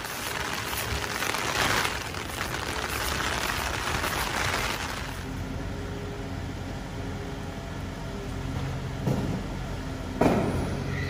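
Rain hissing on an umbrella and wet pavement, then a small box truck's engine running steadily as it drives slowly along a wet street, with a short, louder sound about ten seconds in.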